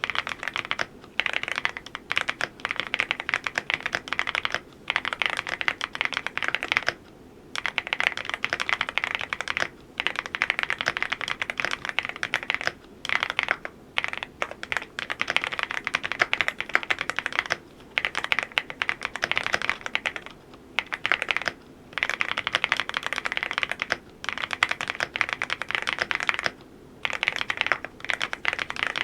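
Typing on a Cidoo V87 Pro full-aluminium mechanical keyboard: fast runs of keystroke clacks, broken by short pauses every few seconds.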